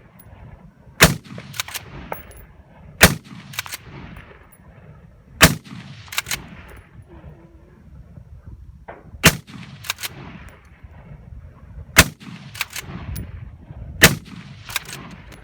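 Rifle shots at a practical rifle match: six loud single shots, spaced about two to four seconds apart. Each shot is followed about half a second later by a pair of fainter sharp sounds.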